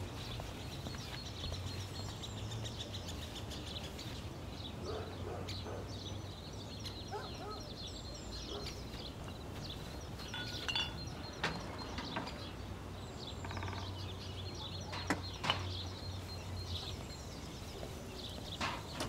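Faint garden ambience of small birds chirping, with a few light knocks now and then.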